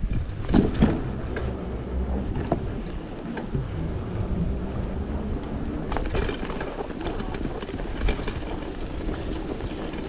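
Wind noise on the microphone and tyre rumble from a bicycle ridden over a rough, uneven path, with frequent short knocks and rattles as the bike jolts.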